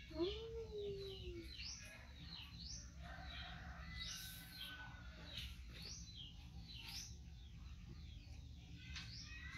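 Small birds chirping repeatedly: quick, high, downward-sweeping notes all through. Right at the start there is a low sliding call about a second long.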